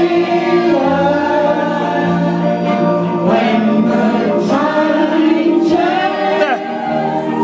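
Loud music with several voices singing over sustained notes.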